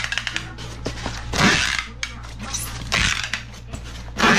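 Packing tape ripping off a handheld tape dispenser in three short pulls about a second and a half apart as a styrofoam box is taped shut, over a steady low hum.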